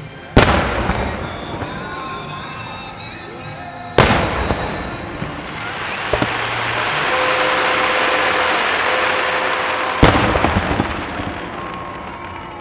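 Aerial firework shells bursting: three loud booms about four and six seconds apart, each with an echoing tail. Between the second and third boom comes a long rushing noise that swells and fades.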